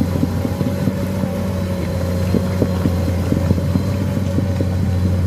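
Komatsu PC210 crawler excavator's diesel engine running steadily as it tracks through deep mud towing a load, a continuous low drone with irregular light knocks over it.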